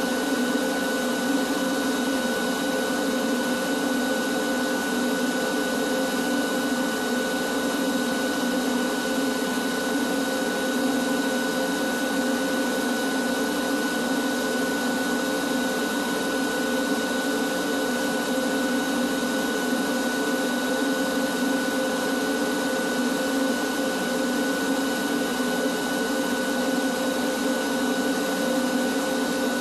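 Canister shop vacuum running steadily, drawing air through a long hose: a constant motor whine over the rush of air, with no change in pitch or level.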